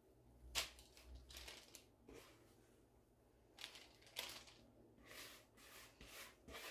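Thick cake batter being scooped out of a plastic bowl by a gloved hand and dropping into a cake tin: a string of faint, short scrapes and soft squishes.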